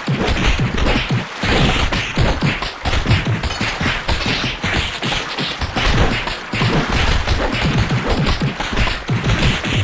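A rapid, unbroken string of sharp sneezes, several a second, one crowding on the next.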